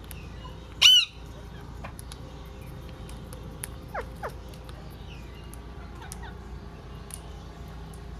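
Green parrot giving one loud, short squawk about a second in, then two quick falling whistles around four seconds, over a steady low hum.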